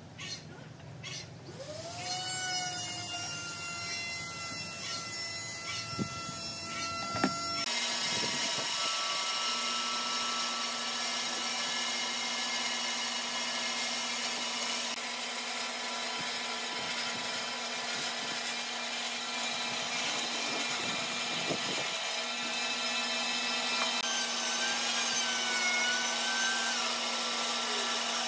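Band saw running steadily and ripping a thick wooden plank lengthwise, a constant motor hum under the noise of the blade cutting. It comes in abruptly about eight seconds in, after a few quieter taps and clicks.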